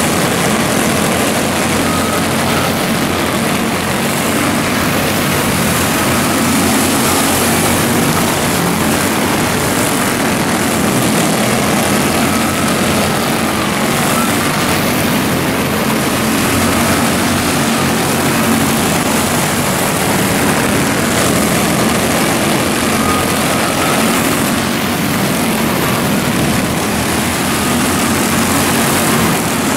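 A pack of quarter midget race cars running laps on a dirt oval, their small engines making a steady, loud drone with a wavering whine as they pass.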